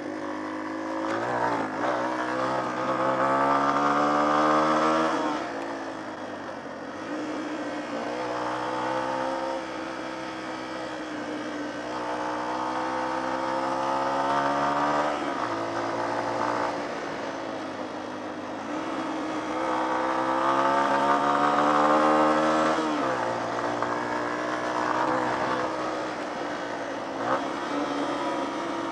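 Small off-road motorcycle engine under way, its pitch repeatedly climbing as it accelerates and dropping back, about four times over.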